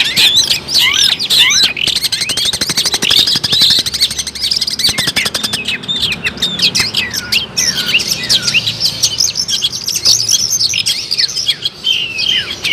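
Long-tailed shrike (cendet) singing nonstop in a fast, varied run of sharp chirps and steeply falling whistles. A fast dry rattle of clicks runs through the song from about two to five seconds in.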